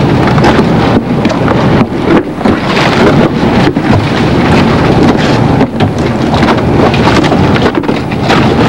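Old tar roofing being torn up with hand tools: a continuous run of scraping, knocking and crunching debris, with wind rumbling on the microphone.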